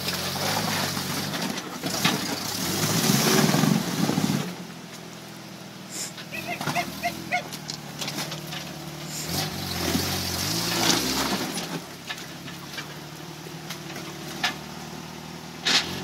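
Off-road truck engine running and revving up in two surges as it climbs over rocks on a trail, with a few sharp knocks in between.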